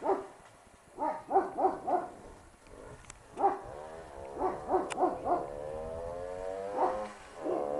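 A dog barking in short runs of two to four barks over the steady drone of a small two-stroke motorcycle engine, which rises in pitch near the end as it speeds up.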